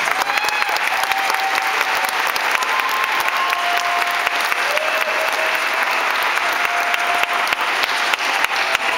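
Audience applauding: many hands clapping at once, with music faintly underneath. The clapping dies away near the end as the music comes back up.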